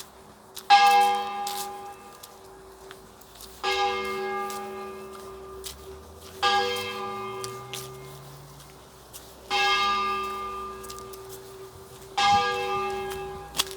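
A single church bell tolling slowly: five strokes about three seconds apart, each ringing on and dying away, with the bell's low hum carrying between strokes.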